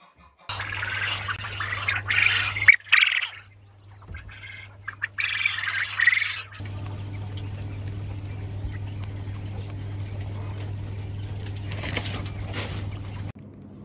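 Quail flapping their wings in wire cages in several short loud bursts, then a steady low hum with faint, regular small chirps from the quail.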